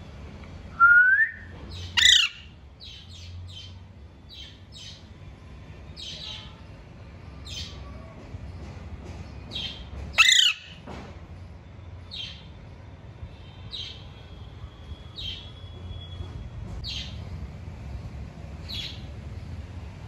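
Alexandrine parakeet calling: a rising whistle about a second in, loud harsh squawks about two seconds in and again about ten seconds in, and short high chirps about once a second in between.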